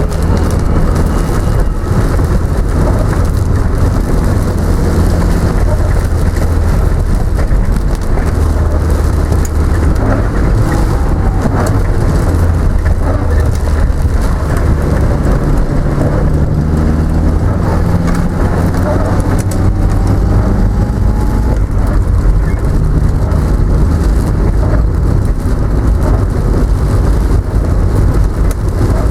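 A car driving in heavy rain, heard from inside the cabin: a low engine hum that shifts up and down in pitch a few times, over steady tyre and road noise and rain falling on the car.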